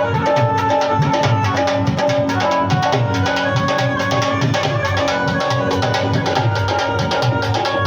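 Indian barrel drum (dhol) played in a fast, continuous rhythm of dense strokes, with deep bass hits, as a sound check of the drum. Held melodic notes sound alongside the drumming.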